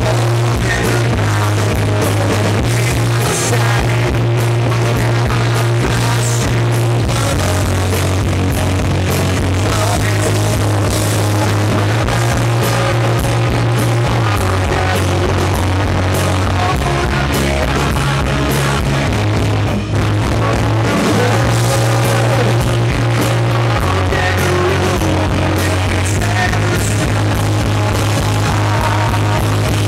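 Live rock band playing loud, with a male lead singer over electric guitar, drums and heavy bass notes that change every second or two. The recording is distorted and bass-heavy, made right under a large PA speaker.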